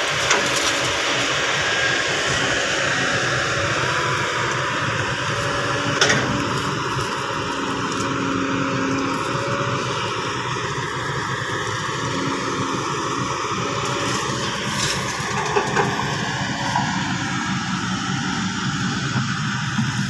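Kobelco crawler excavator's diesel engine running steadily while the machine digs and loads soil, its pitch shifting slightly as it works.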